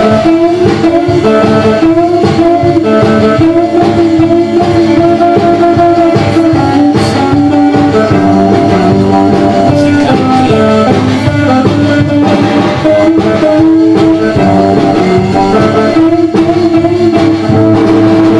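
Rockabilly record playing loudly, with electric guitar to the fore.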